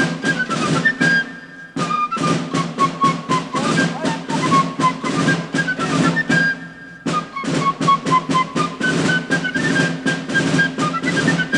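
Fife and drum playing a military march: a high, shrill flute melody over rapid drum strokes, with short breaks between phrases.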